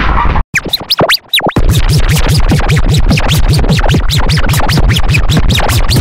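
Electronic music, heavily edited. After a brief drop-out with a few sliding tones, a fast repeating pattern of sharp clicks over pulsing bass starts at about four to five pulses a second.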